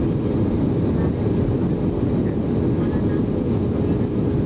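Steady cabin noise of an Airbus A320 descending on approach with flaps extended: a low, even rush of engine and airflow, with a faint steady hum above it.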